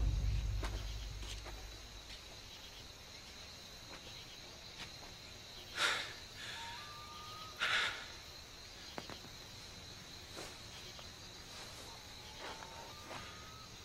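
Music fades out over the first second or two, leaving a quiet night ambience of crickets chirring steadily at a high pitch. Two short hissing rustles come about six and eight seconds in, and faint short rising chirps sound twice.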